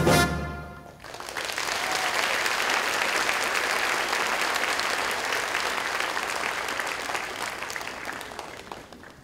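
A recorded brass band's final chord ends within the first second, then an audience applauds steadily, the clapping tapering off near the end.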